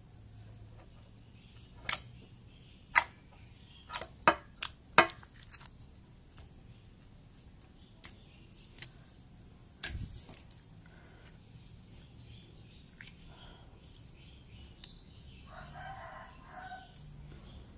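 Clear slime being kneaded and pressed by hand, giving sharp wet pops and clicks: a quick run of them in the first few seconds and a single one about ten seconds in.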